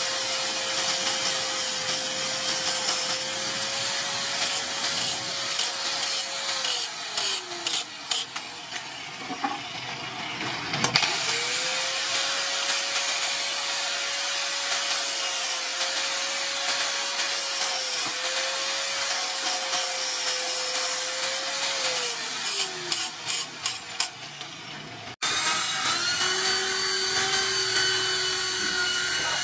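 Angle grinder with a flap disc grinding a steel knife blade, its motor running at a steady pitch, then winding down about six seconds in. It starts up again with a quick rise at about eleven seconds, grinds steadily, and winds down again a few seconds before the end. In the last few seconds an electric drill runs at a steady pitch.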